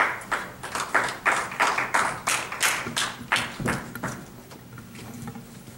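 A few people clapping in a steady rhythm, about three claps a second, stopping about three and a half seconds in.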